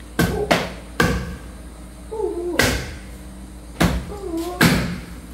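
Heavy chopping on a cutting board: about six sharp strikes at uneven spacing, with a short ring after each.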